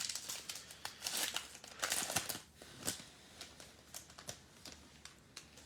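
Plastic or foil trading card packaging crinkling as cards are handled: a run of soft, irregular crackles that thin out toward the end.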